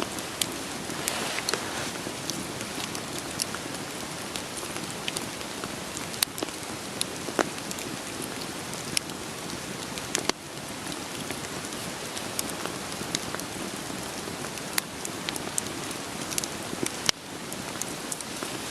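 Steady rain patter mixed with a crackling wood fire, sharp pops of burning firewood scattered every second or two over the even hiss of the rain.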